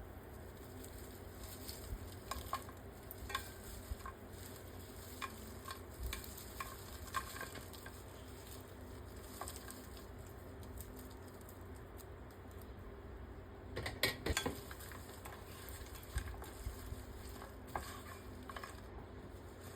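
Dried anchovies being stir-fried in a pan: a spatula stirring and tapping against the pan over a low, steady sizzle, with a flurry of louder knocks about two-thirds of the way through.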